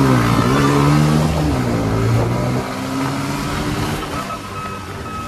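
Motor vehicle engine revving up sharply, holding for about a second and a half, then dropping back and running on more steadily.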